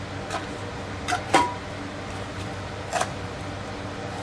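A few light metal knocks and clinks as a cast-iron steering knuckle is worked down onto a front hub-and-bearing assembly. The loudest comes about a second and a half in, with a brief metallic ring. A steady low hum runs underneath.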